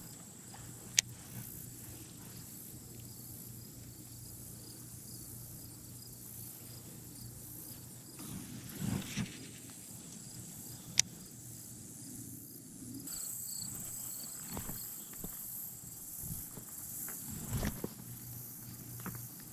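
Outdoor insect chorus: a steady high-pitched buzz with a faint even pulsing, growing louder about two-thirds of the way through. Two sharp clicks, about ten seconds apart, and a few soft knocks of handling are heard over it.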